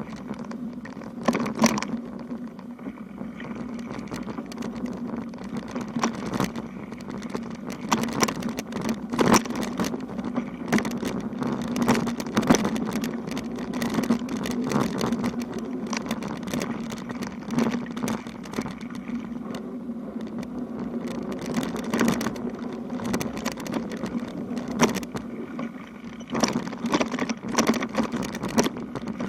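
Bicycle riding over an uneven road: a steady rolling hum from the tyres, broken by frequent irregular knocks and rattles as the bike goes over bumps, busiest about a second in, in the middle and near the end.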